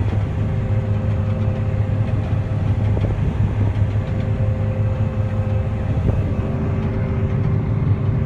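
John Deere 9400 combine running steadily: a constant engine drone with steady whining tones over it.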